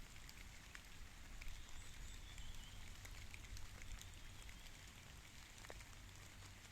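Light rain falling: a soft steady hiss with scattered single drops ticking.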